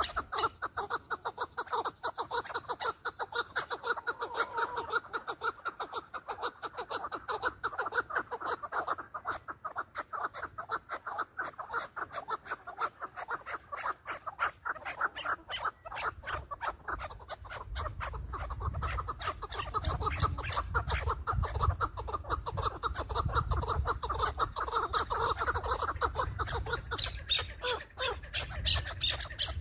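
Chukar partridges calling: a rapid, unbroken run of short clucking notes. A low rumble comes in about halfway through.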